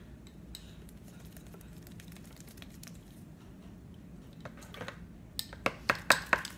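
Light clicks and taps of hands handling small kitchen items at a counter, with a quick run of sharp clicks near the end.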